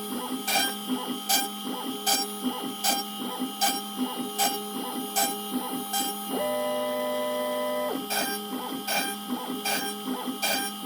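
DIY OpenBuilds CNC router's stepper motors driving the gantry in a rapid run of short, evenly repeated moves. About six seconds in they hold one steady whining tone for a second and a half during a longer move, then go back to the short repeated moves.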